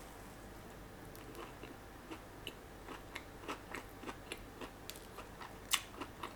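Biting into and chewing a crunchy custard-filled cruller, Mister Donut's Zaku Zaku Custard French. A string of short, crisp crunches begins about a second in, and the loudest crunch comes near the end.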